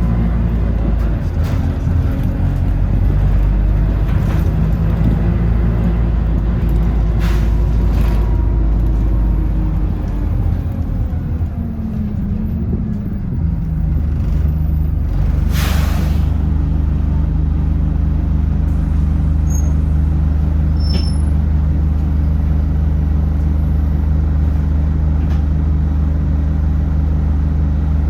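Bus engine running steadily, its pitch sagging and gliding about halfway through as it slows. A short loud hiss of air brakes comes a little after the middle, then the engine settles back to a steady hum.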